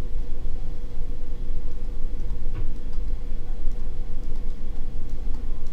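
Steady low rumble of background noise with a faint steady hum, and one light tap about two and a half seconds in.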